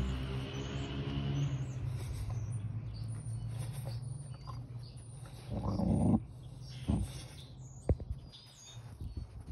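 Dog sounds: a low, steady growl at the start that fades after a couple of seconds, then a short loud bark about six seconds in and a smaller one a second later. A sharp knock comes near the end.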